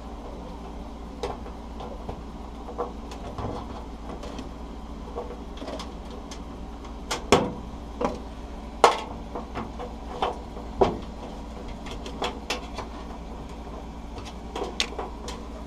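Irregular clicks and knocks of a snap-in range hood switch being squeezed and worked through its mounting hole in the hood panel, the loudest two about seven and nine seconds in, over a steady low hum.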